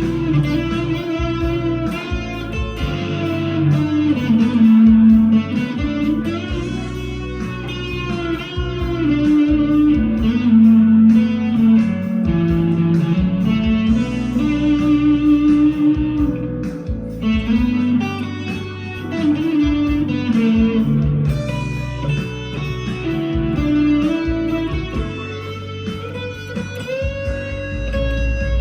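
PRS SE 245 electric guitar played with overdrive: a lead line in B minor with string bends gliding up and down in pitch, ending on one long held note.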